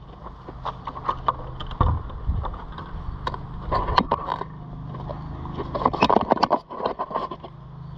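Footsteps and irregular clicks and scuffs of a handheld camera being carried while walking outdoors, over a steady low hum.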